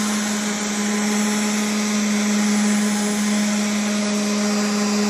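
Electric random orbital sander running at a steady speed with a fine-grit sanding disc on a cured epoxy resin surface. It makes an even motor hum with a hiss of abrasive over it.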